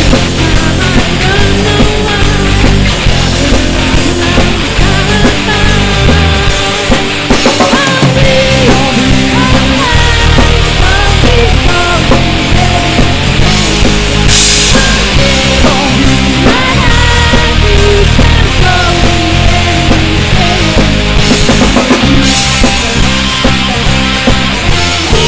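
Loud rock music: a band playing a song, with a melody line moving over a full, steady low end.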